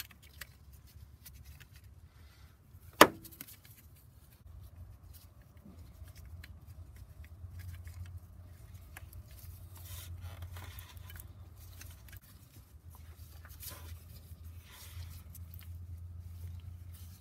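Hands fiddling with a plastic electrical connector and its wiring in a crowded engine bay: scattered small clicks and rustling, with one sharp, loud click about three seconds in, over a low steady hum.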